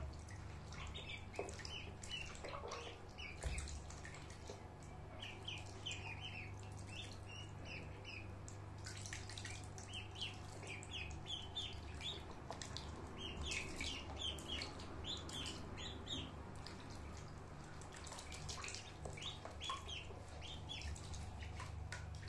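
Ducklings peeping in runs of short, high calls, with light splashing and dripping of water as they paddle, over a steady low hum.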